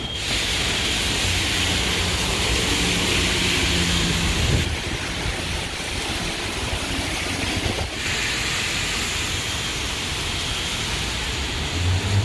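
Car driving through heavy rain: a steady hiss of rain and wet tyres over a low engine hum. The sound changes abruptly about four and a half and eight seconds in.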